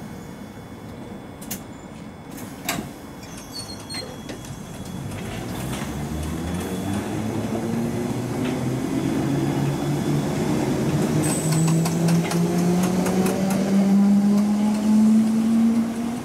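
Electric train's traction motors whining as it pulls away, the whine climbing steadily in pitch and growing louder over the second half, with a few sharp clicks early on.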